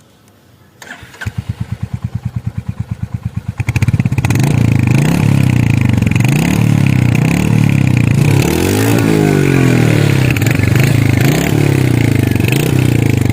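Royal Enfield Hunter 350's single-cylinder engine starting about a second in and idling with an even thump, then revved up from about four seconds in and held at higher revs, the pitch dipping and climbing again around nine seconds in.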